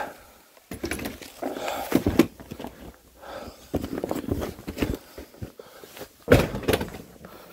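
Camping low chairs in canvas carry bags being handled and stacked: rustling fabric, shuffling and knocks of the wooden frames, with one loud thump about six seconds in.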